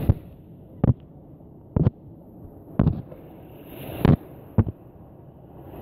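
Muffled underwater sound from a phone dipped into a rocky tide pool: a low, steady murmur broken by about six sharp knocks, irregularly spaced about a second apart.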